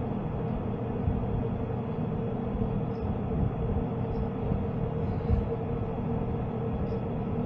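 Steady mechanical hum and low rumble with one constant mid-pitched tone, and a few faint brief ticks.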